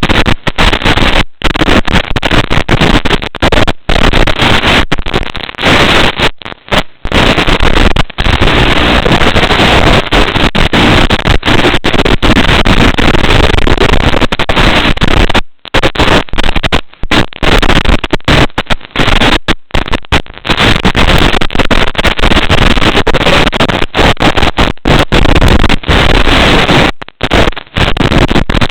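FPV racing drone's motors: a loud, distorted, continuous buzz with many brief dropouts.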